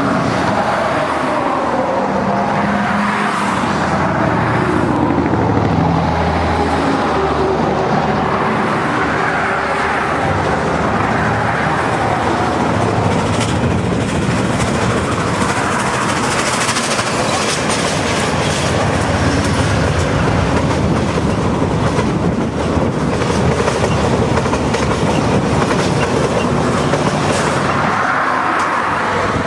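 Streamlined steam locomotive hauling a long passenger train, approaching and running past, then the passenger cars rolling by with a clickety-clack of wheels over the rail joints.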